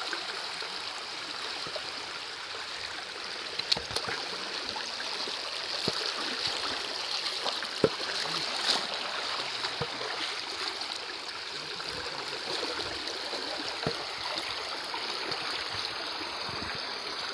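Steady rush of a stream or waterfall flowing over rocks, with a few short sharp knocks.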